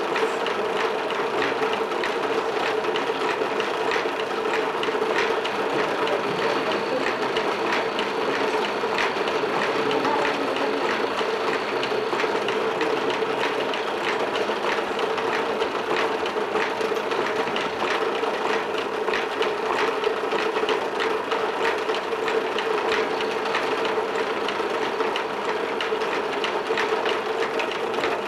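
A machine running steadily: a constant hum under a fast, even clatter of small clicks that never lets up.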